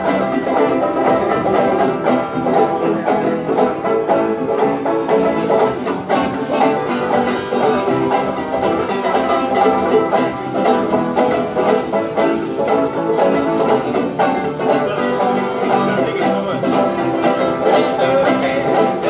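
A small acoustic string band playing live: banjo picking over strummed acoustic guitars, with a busy, continuous plucked rhythm.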